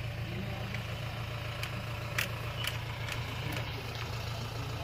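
Vehicle engine idling with a steady low hum. A few short, sharp clicks come in the middle.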